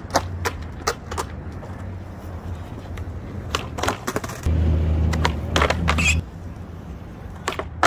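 Skateboard on concrete flatground: a run of sharp clacks as the tail pops and the board slaps and clatters on the ground during attempted flip tricks, one of them ending with the board flipped upside down. A steady low rumble runs underneath and is louder for a couple of seconds past the middle.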